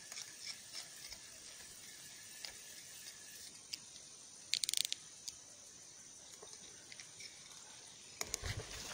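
Faint pond-side background with a steady high hiss and scattered light clicks. About halfway through comes a brief burst of rapid ratchet-like clicking, and near the end a few low thumps of handling or footsteps.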